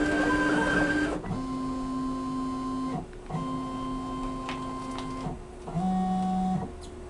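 Stepper motors of a DIY CNC router driving the gantry through a series of moves. A busier run of motor noise lasts about the first second, then come three separate moves, each a steady pitched whine that starts and stops abruptly: two of about two seconds and a short last one, with brief pauses between.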